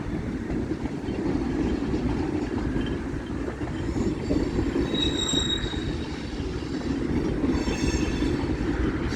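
Freight cars of a long manifest train rolling past, a steady rumble of steel wheels on rail. Brief high-pitched wheel squeals come about five seconds in and again a few seconds later.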